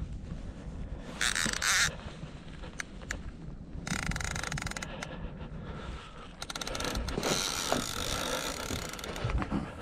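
Fishing reel working under load during the fight with a hooked catfish, with the rod bent hard: three stretches of buzzing reel noise, about a second in, around four seconds in and from about seven seconds on, with scattered clicks between them.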